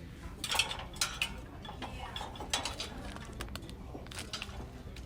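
Light clattering and clicking of small hard objects being handled, with a cluster of sharp clicks about half a second to a second in and more near the middle, over a steady low hum.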